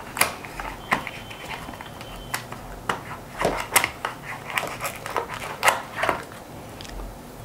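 Hands working a plastic phone charger out of its tight cardboard compartment in a phone box: irregular clicks, taps and scrapes of plastic against cardboard.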